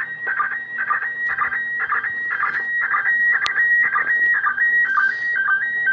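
Slow-scan TV (SSTV) picture signal from the International Space Station, heard through an FM amateur radio receiver on 145.800 MHz. It is a stream of warbling electronic tones with a sync beat about twice a second, as the image is sent line by line, with a single click about midway.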